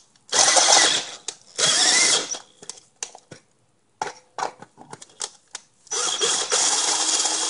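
Power drill boring out the bore of a metal oxygen-sensor spacer to widen the hole for the sensor's tip. It runs in two short bursts in the first two seconds, then a scatter of light clicks, then a longer steady run near the end.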